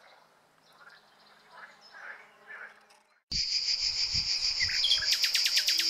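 A few faint short chirps over near silence. Then, about three seconds in, cicadas start abruptly with a loud, steady, high buzz, joined near the end by a rapid pulsing song.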